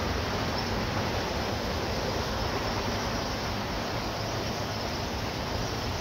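Steady rushing noise of a bicycle ride: wind across the microphone and tyres rolling on pavement, with a low rumble underneath.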